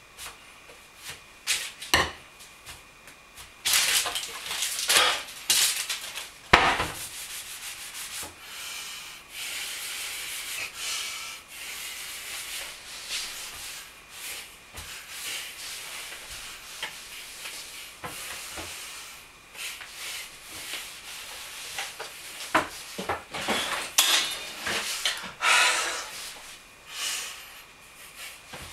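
Kitchen handling sounds: irregular rubbing and scraping, with a few sharp knocks, about two seconds in and again about six and a half seconds in. The noise comes in louder clusters early on and again towards the end.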